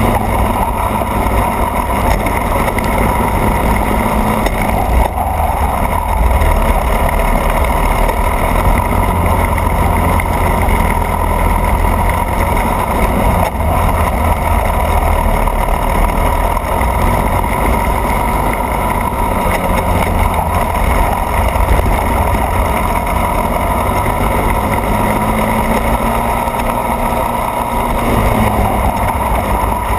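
Racing kart engine running at speed, recorded onboard, its pitch rising and falling as the driver works the throttle, over a heavy steady rumble.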